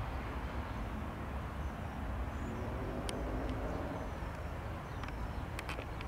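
Steady, distant rumble of the Embraer ERJ-195's twin turbofans running at taxi idle, with a few short bird chirps and clicks near the end.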